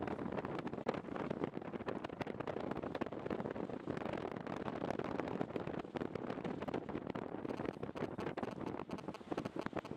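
Airflow rushing and buffeting over the microphone in flight: a steady wind rush broken by many small crackles.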